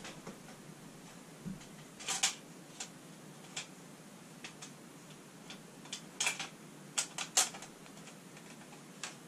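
Scattered light clicks and clacks from a computer case's front cover being handled and fitted onto the case, about ten in all and irregularly spaced, with the loudest around two seconds in and again near six and seven seconds.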